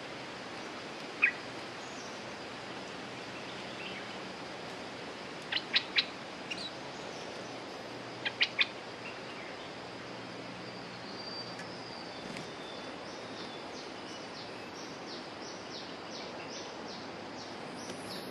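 Bulbul calls: a single sharp note about a second in, then two quick groups of three loud notes around six and eight and a half seconds, and a faint fast run of short notes near the end. A steady background hiss runs underneath.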